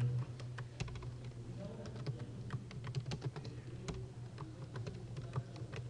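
Computer keyboard typing: irregular key clicks, several a second, over a low steady hum.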